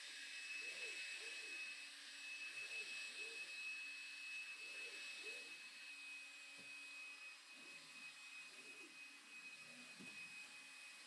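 A steady hiss with a thin, high-pitched tone held over it, like a fan or appliance running.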